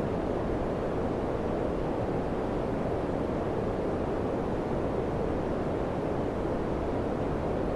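Daikin FCQ100KAVE4 ceiling-cassette air conditioner running, its fan giving a steady, even rush of airflow.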